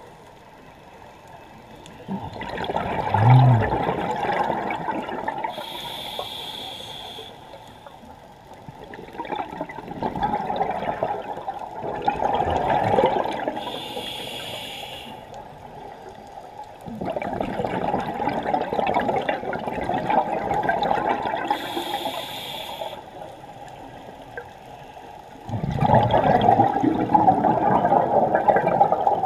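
A scuba diver breathing through a regulator underwater, at a slow steady rhythm of about one breath every eight seconds. Each breath is a short hiss of inhalation, then a longer, louder rush of bubbling exhaust bubbles, four exhalations in all.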